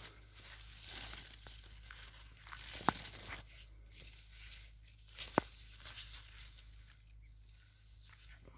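Leaves and stems of broad bean and onion plants rustling and brushing against a handheld phone as it is pushed through the foliage, with two sharp clicks a couple of seconds apart in the middle.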